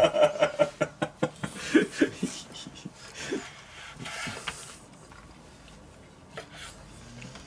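Laughing and snickering in quick pulses, breaking into scattered chuckles and breathy sounds that trail off after about five seconds.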